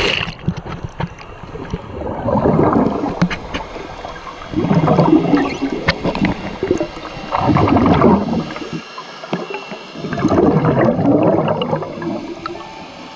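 A scuba diver's exhaled bubbles gurgling out of a regulator underwater, in four bursts of a second or two each, a few seconds apart, with a steady hiss of water between them.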